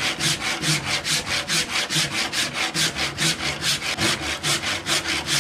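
Handsaw cutting through an oak rafter in quick, even strokes, about five a second. This is the last stretch of a half-lap cut, freeing the offcut.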